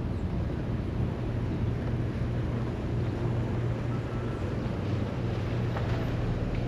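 Car being driven at a steady pace: constant engine and tyre noise with a low, even hum, and a couple of faint ticks late on.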